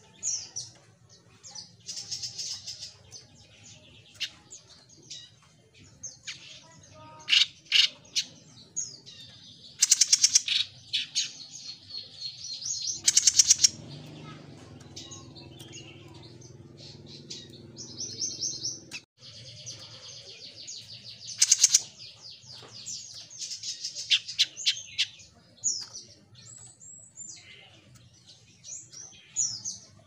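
Caged jenggot mini songbird calling busily: quick chirps and short rattling trills, broken by several loud, sharp calls. A steady low hum sits underneath for a few seconds in the middle.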